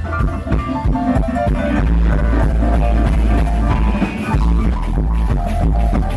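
A live band jamming, loud and full: electric bass, keyboard and drums playing together with a steady beat.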